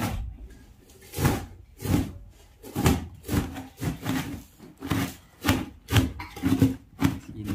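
Momo dough being kneaded by hand on a surface: a steady run of pushing and rubbing strokes, about two a second.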